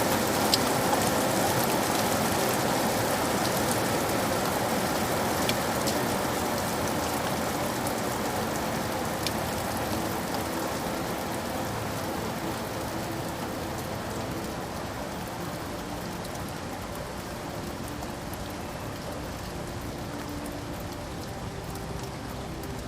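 Steady rain falling, with scattered sharper ticks of single drops; it slowly grows quieter.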